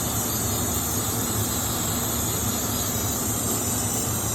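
Mopar aerosol brake cleaner spraying in a long steady hiss, washing aluminum shavings off a freshly trimmed part.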